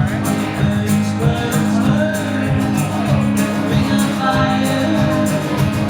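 Live country music: a performer singing over guitar with a steady bass and beat.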